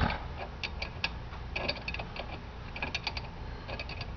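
Irregular light metallic clicks and clinks as a hand works the stub axle nut and flange on a Datsun 280Z's rear hub.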